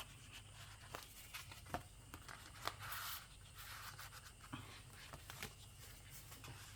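Faint rustling of paper and soft clicks as pages of a handmade junk journal are handled and turned, with a longer rustle about three seconds in.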